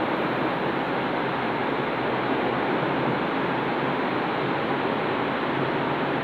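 Steady, even hiss of background noise with no distinct events, no louder or softer across the stretch.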